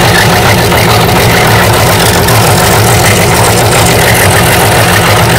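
Scroll saw running and cutting a thin sheet of soft balsa wood: a loud, steady machine hum with the blade's chatter.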